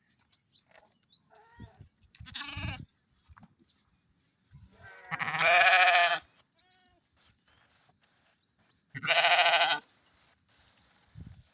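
Ewe (mother sheep) bleating three times: a shorter call about two seconds in, then a long, loud, wavering bleat around five seconds in and another about nine seconds in.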